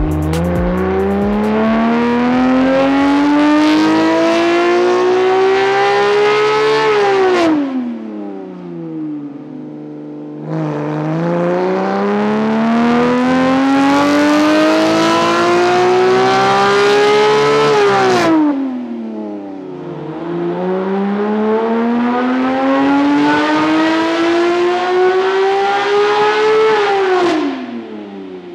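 Porsche 911 GT3 (991.2) with a naturally aspirated 4.0-litre flat-six and a JCR titanium exhaust, making three full-throttle dyno pulls. Each pull rises steadily in pitch for about seven seconds and then drops away as the throttle is lifted, with the engine running low in between.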